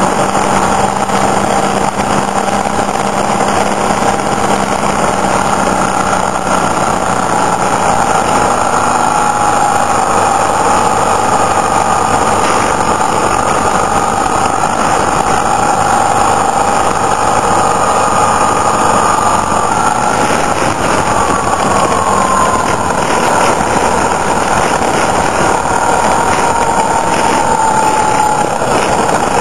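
Motorcycle engine running steadily at road speed inside a tunnel, under a heavy rush of wind and road noise. Its pitch eases slowly downward in the later part.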